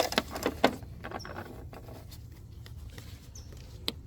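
Light plastic clicks and rattles in the first second, then one sharp click near the end, from handling an HID headlight bulb and its wiring in a car's headlight housing.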